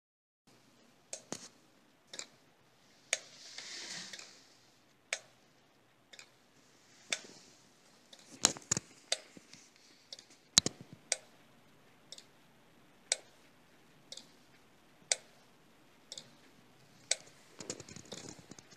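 A pair of solenoids driving a turtle robot's flippers, clicking sharply about once a second, with a few doubled clicks in between. A brief soft hiss comes twice.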